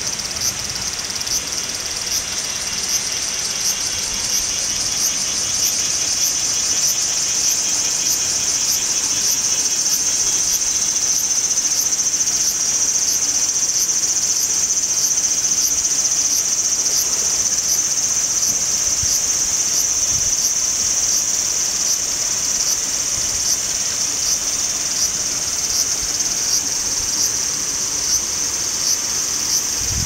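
Cicadas singing in a loud, continuous, high-pitched chorus. A second pulsing buzz joins in at first and fades out about ten seconds in.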